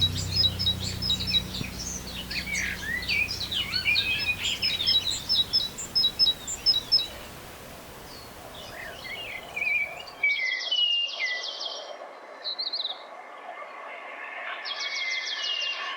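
Songbirds singing and chirping busily for the first seven seconds or so. After a sudden drop in the background about ten seconds in, a bird sings two fast, even trills, the second near the end.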